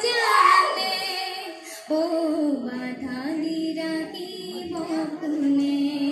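A young woman singing solo into a microphone without accompaniment, holding long notes.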